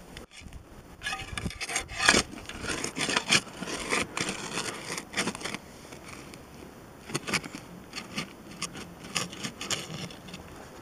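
Metal shovel blade scraping and digging into loose soil in a hole: a run of irregular scrapes, busiest in the first half and again near the end.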